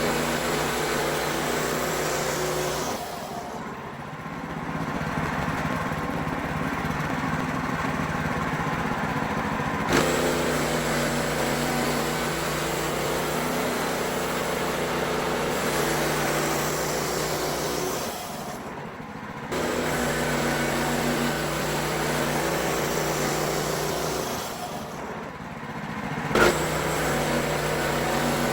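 WoodMizer LX55 portable bandsaw sawmill running steadily while resawing pine into boards. Three times the sound falls away for a second or two and then comes back suddenly.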